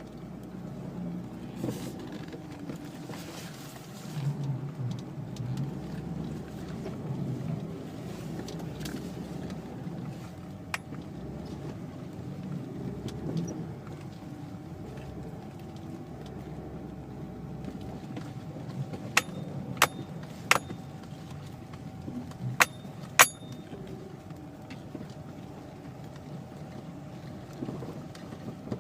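Toyota Chaser GX100 suspension knocking: sharp knocks over the car's steady low rumble, one about a third of the way in and a quick cluster of five a little past the middle. The knocks are the sign of a fault in the suspension.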